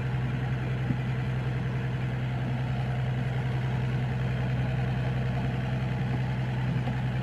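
Fishing boat's engine idling: a steady low drone with an even hum that does not change.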